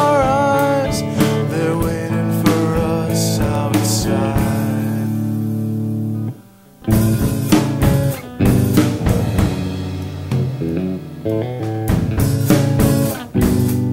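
Instrumental passage of a rock song: guitars and drums playing, with a held chord that drops out briefly about six and a half seconds in before the band comes back in.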